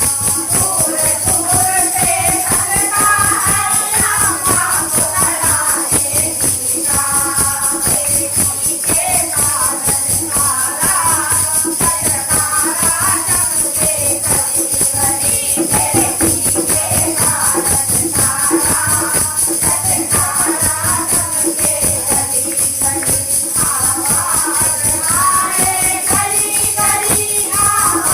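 Hindu devotional bhajan played with a tambourine jingling to a fast, steady beat, with a sung melody over it.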